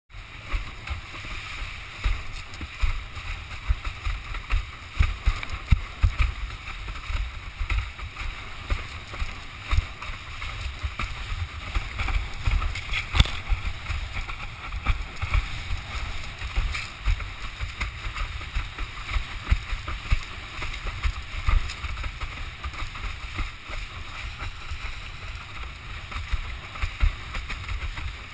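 Windsurf board planing fast over choppy sea: steady water hiss and spray with irregular splashes, under a low rumble of wind buffeting the microphone in gusts.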